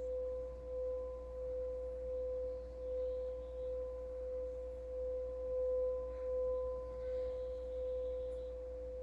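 Singing bowl ringing on with one steady tone that swells and fades in slow, even pulses, over a low steady hum.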